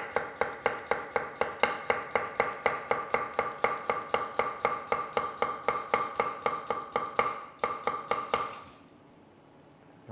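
Global chef's knife thinly slicing cucumber on a wooden cutting board: fast, even strokes of the blade hitting the board, about four to five a second, stopping about eight and a half seconds in.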